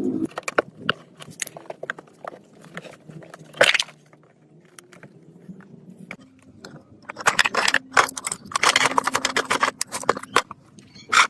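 Metal parts and hand tools clinking, clicking and scraping during workshop hand work, with scattered single clicks and a denser run of rapid clicking and scraping about seven seconds in.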